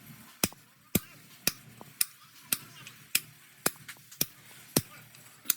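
Hammer blows struck in a steady rhythm, about two a second, each a sharp ringing hit.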